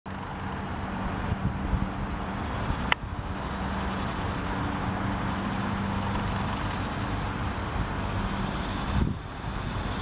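Steady road traffic noise with a low engine hum, which drops off suddenly about nine seconds in; a single sharp click near three seconds.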